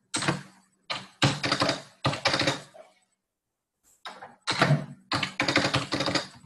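Typing on a computer keyboard: two quick runs of keystrokes with a short pause between them, as a price is keyed into each of two table cells.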